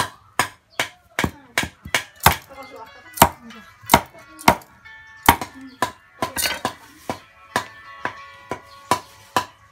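Heavy cleaver chopping raw chicken on a thick round wooden chopping block: sharp, steady chops about two to three a second.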